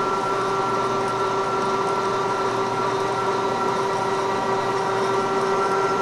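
Milling machine running at low spindle speed, driving a 7/8-inch drill bit down through two stacked 3/8-inch boiler plates under power down feed: a steady mechanical hum with several constant whining tones.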